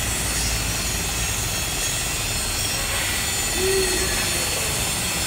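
Steady rushing hiss with a low rumble: compressed natural gas flowing out of a car's CNG cylinder into another cylinder during transfer.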